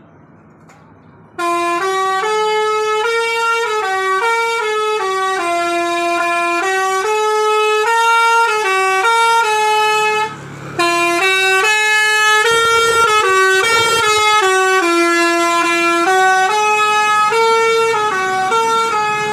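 A bus's telolet horn, a multi-trumpet musical air horn, plays a tune of short stepped notes. It starts about a second and a half in, breaks off briefly a little past halfway, then plays on to the end.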